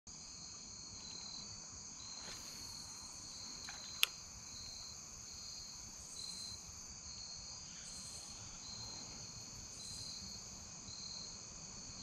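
Steady chorus of crickets and other insects, one high song pulsing over a constant high trill, with a single sharp click about four seconds in.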